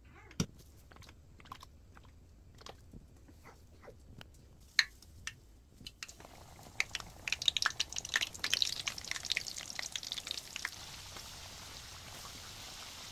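A few light clicks and knocks, then floured chicken pieces dropped into hot oil start crackling and sizzling about six seconds in. The crackle is busiest through the middle and settles into a steady frying hiss near the end.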